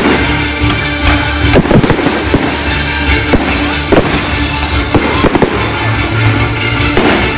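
Fireworks display: shells bursting with repeated, irregularly spaced bangs, with music playing alongside.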